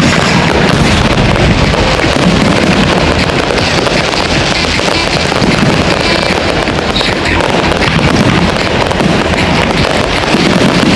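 Fireworks display going off in a dense, continuous barrage, a steady loud rumble and crackle with no single bang standing out.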